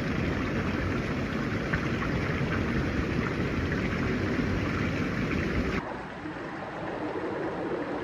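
Hot tub jets churning and bubbling the water in a dense, steady rush. About six seconds in it cuts off abruptly to a quieter, duller steady hiss.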